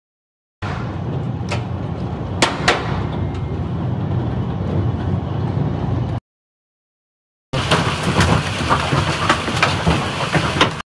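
Heavy hail and rain pelting down: a dense, steady hiss with sharp cracks of individual hailstones striking. It comes in two stretches, broken by a gap of about a second.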